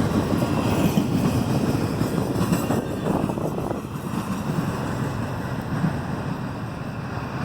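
Union Pacific train rolling past close by: a steady rumble of wheels on the rails that eases off a little in the second half.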